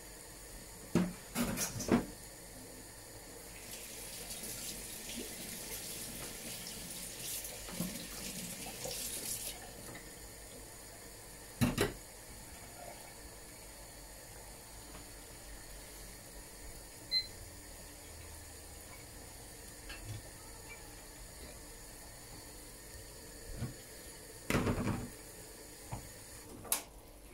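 Kitchen worktop sounds: a saucepan of spiced sugar syrup simmering quietly, with a hiss like running water lasting about six seconds a few seconds in. There are scattered knocks, the loudest cluster near the end as a plastic measuring jug of chocolate pieces is set down on the counter.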